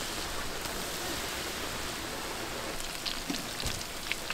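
Batches of Korean twigim (battered fritters) deep-frying in hot oil, a steady sizzling hiss, with a few faint clicks about three seconds in.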